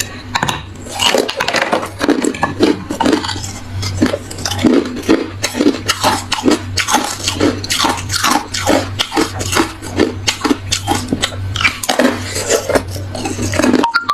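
Close-miked chewing of hard ice, crunchy, a steady run of sharp crunches several times a second.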